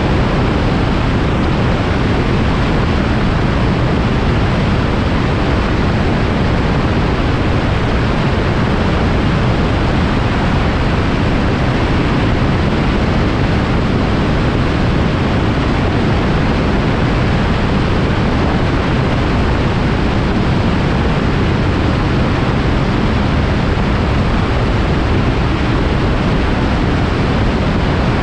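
Microlight aircraft in flight: a loud, steady, unchanging rush of engine and wind noise.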